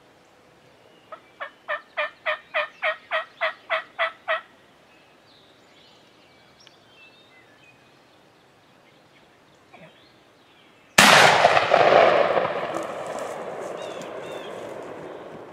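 A run of about a dozen evenly spaced turkey yelps. Then, about eleven seconds in, a single shotgun shot kills the gobbler. It is the loudest sound here and fades slowly over several seconds as it rolls away.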